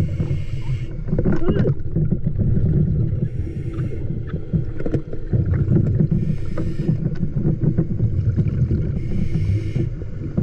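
Muffled underwater noise picked up through a diving camera's housing: a steady low rumble scattered with small clicks and knocks. A short hiss comes in about every three seconds.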